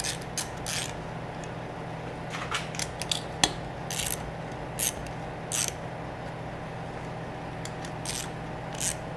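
Ratchet wrench clicking in short, irregular bursts as the bolts of a refrigeration compressor's shaft-seal cover plate are run down quickly, over a steady low hum.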